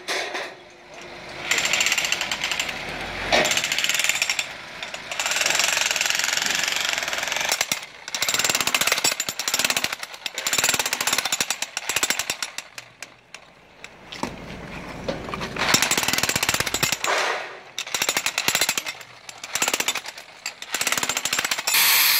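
Hand-held electric chipping hammer breaking up brick and concrete, running in bursts of one to three seconds with short pauses between. Near the end an angle grinder starts and runs steadily.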